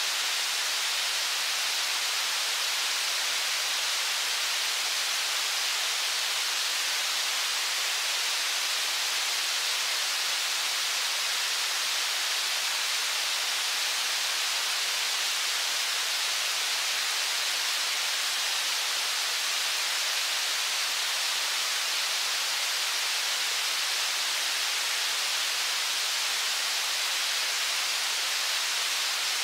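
Steady rushing hiss of fast river water running through rapids.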